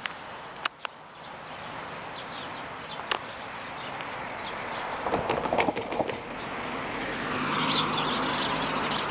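Outdoor roadside ambience: a steady hiss of background noise that slowly grows louder, with a few sharp clicks, and bird calls chirping near the end.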